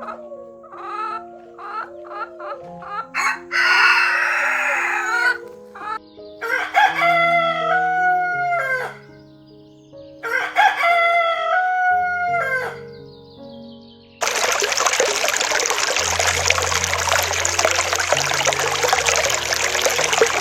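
Rooster crowing twice, each crow a long call falling in pitch, after a run of short clucking calls and a harsh squawk, with background music. About two-thirds of the way in, a steady loud hiss takes over.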